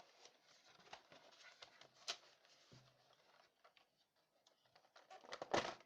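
Cardboard box of an airsoft pistol being opened and its contents handled: light clicks and rustling, a sharp click about two seconds in, and a louder rustle near the end.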